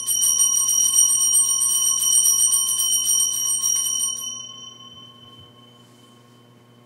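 Altar bells shaken in a rapid, continuous peal at the elevation of the consecrated host. The peal stops about four seconds in and leaves a single ringing tone that fades away.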